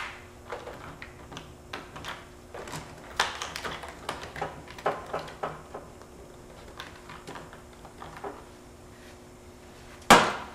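Small clicks, taps and rustles of gloved hands handling gun-cleaning gear (a plastic cleaning-kit case, a cleaning rod and cotton patch), then one short, loud burst of noise near the end.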